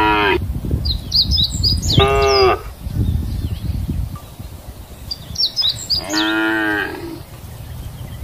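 Cows mooing: three short moos, one fading out just after the start, one about two seconds in and one about six seconds in.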